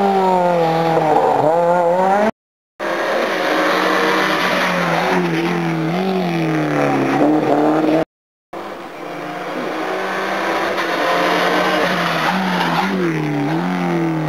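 Hard-driven R3-class rally car engines on a tarmac stage, their pitch rising and falling through gear changes and lifts. The sound breaks off to silence twice, briefly, about two and eight seconds in.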